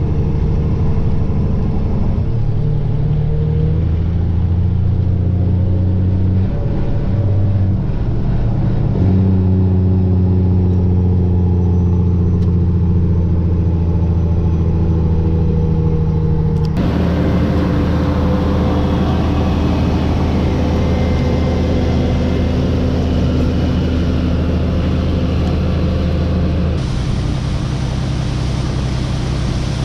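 Heavy farm-vehicle engine running steadily under load, with an even low hum. The sound changes abruptly about 17 and 27 seconds in, each time to a different steady engine note.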